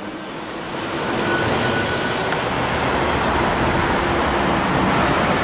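Rushing noise of a passing vehicle that swells over the first second or so and then holds steady, with a faint high squeal in it for about a second and a half near the start.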